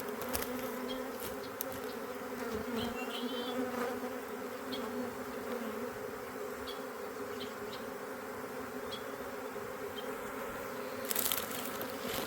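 A freshly shaken-down honeybee swarm buzzing steadily around its new hive box, a dense continuous hum of many bees in flight. A brief burst of noise near the end.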